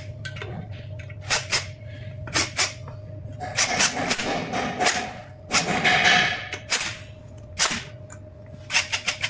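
Sharp metal clicks and knocks of tools and parts being handled during hub-motor reassembly, with a quick run of clicks near the end and two longer scraping noises in the middle.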